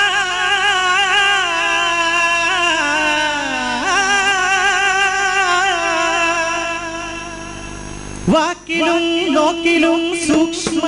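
Devotional qawwali singing: a male voice holds a long, wavering, ornamented line that fades about eight seconds in. A new phrase then starts abruptly over a steady held note, with sharp drum strokes near the end.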